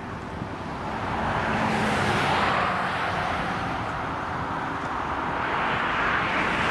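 Airbus A320-family airliner taxiing, its jet engines giving a steady rush that swells about a second in and again near the end.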